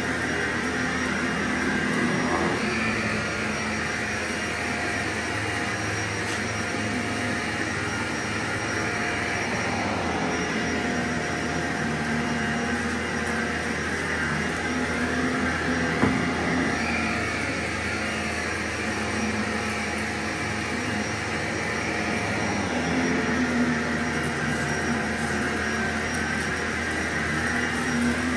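Vacuum cleaner running steadily through slow cleaning passes, its motor hum with a few held tones swelling and easing a little. One brief click about halfway through.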